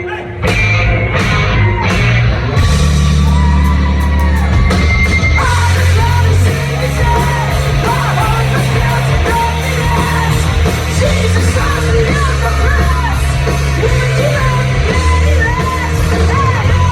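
Live rock band playing loud and steady, with a singer yelling and singing over the full band.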